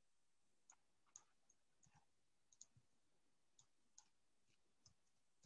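Faint, scattered clicks of a computer mouse and keyboard, one every half second to a second, over near silence.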